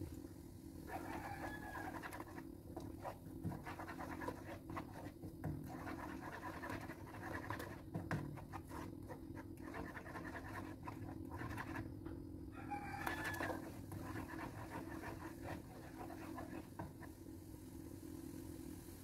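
Black plastic spatula stirring and scraping blended chilli-turmeric spice paste in a nonstick wok, heard as many short scrapes and clicks over a faint steady hum.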